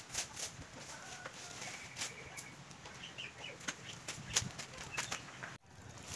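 Dry leaves and twigs rustling and crackling in a scatter of short clicks, with a few faint short bird calls.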